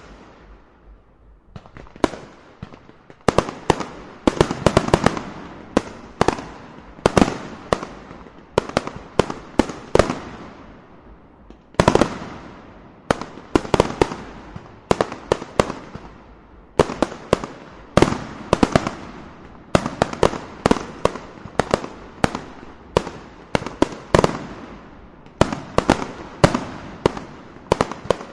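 Fireworks going off in a rapid, irregular barrage of sharp bangs, each trailing off in a short echoing tail. It begins with a few scattered bangs and builds to a near-continuous volley after about three seconds.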